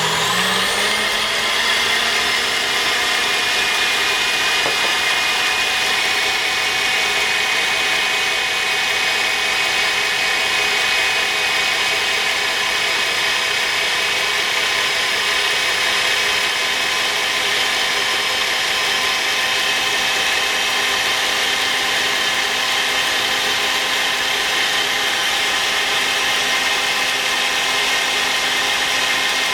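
Electric mixer beating duck egg whites at high speed. Its motor whine rises as it comes up to speed in the first second, then holds steady.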